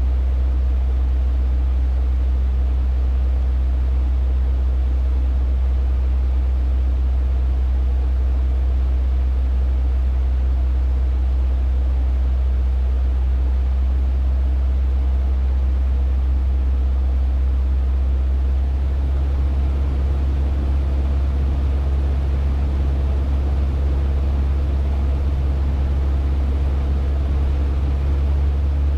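Cessna 150's four-cylinder Continental O-200 engine and propeller droning steadily in flight, a deep, even hum heard from inside the cabin. The engine note shifts slightly about nineteen seconds in.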